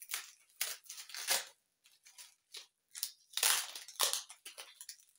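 Packaging around small ceramic plates being torn and handled open: a series of short, irregular crackling and tearing sounds, the loudest about three and a half seconds in.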